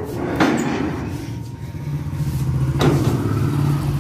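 Single-cylinder commuter motorcycle engine idling steadily, picking up slightly as it rolls in, with a sheet-metal gate clanking twice as it is pushed open.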